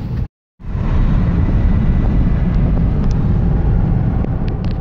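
Steady road and engine noise inside a moving car's cabin. It drops out completely for a moment near the start, at a cut in the recording.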